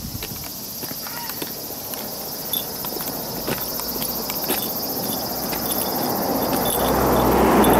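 Cicadas droning steadily, with footsteps on a paved path. A car approaches and grows louder over the last couple of seconds.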